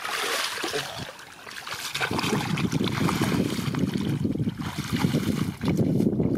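Water trickling and sloshing in a muddy rice paddy, then from about two seconds in a low, uneven rumble of wind on the microphone.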